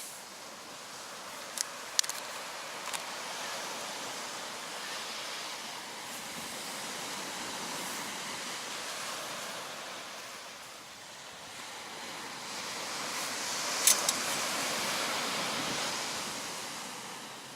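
Sea waves washing on the shore, a steady rushing hiss that ebbs and swells, loudest a little past the middle. A few short sharp clicks sound near the start and once near the end.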